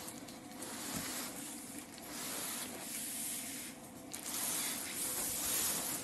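Rubbing and scraping on a cardboard carton as it is handled, in several swells of about a second each.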